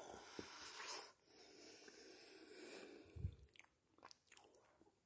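A person biting into and chewing a giant Hershey's Kiss chocolate close to the microphone. It is faint, with a short cluster of sharp clicks a little after three seconds in.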